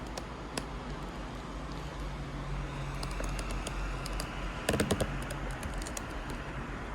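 Scattered light clicks and taps over a steady background hiss and low hum, with a quick cluster of louder clicks about five seconds in.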